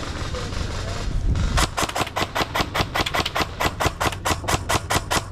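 Airsoft gun firing a rapid, even string of shots, about five or six a second, starting about a second and a half in after a steady hiss.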